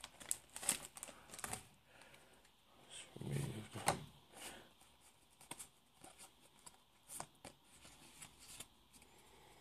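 Faint rustling and light clicks of Pokémon trading cards being handled after a booster pack is torn open, with a soft, fuller swell of handling about three to four seconds in.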